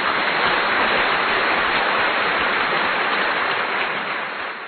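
A steady, even hiss that fades out near the end.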